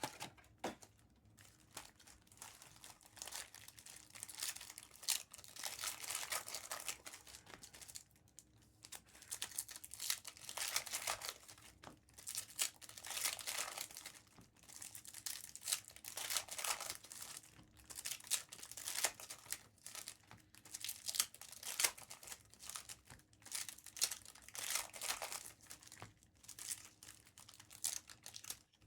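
Plastic and foil packaging crinkling and tearing in irregular bursts with short pauses, as Topps Chrome blaster boxes and their wrapped card packs are ripped open.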